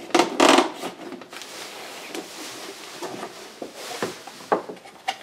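Cardboard box and packaging being handled: two loud rustling scrapes in the first half-second, then quieter rustling with a few light knocks and clicks.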